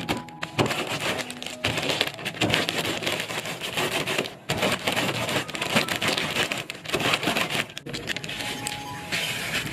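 Ridged potato chips crunching and crackling inside a sealed plastic snack bag as a wooden pestle is rolled and pressed over it, with the packet crinkling. Near the end, the cut-open bag rustles as the crushed crumbs are poured out onto a plate.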